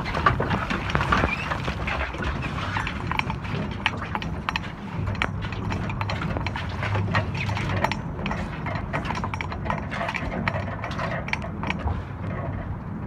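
Squid jigging reel turning on its shaft over the water, a steady low hum with a run of irregular clicks and knocks as the line and jigs come over the spools.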